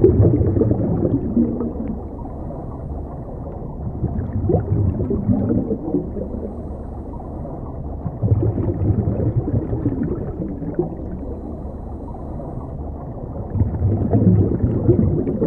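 Scuba diver's exhaled bubbles from the regulator, heard muffled through an underwater camera housing: four gurgling bursts, one every four to five seconds in time with breathing, over a steady low underwater rumble.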